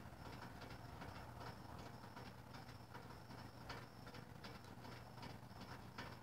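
Faint night ambience: short high chirps repeating about three times a second over a low steady hum.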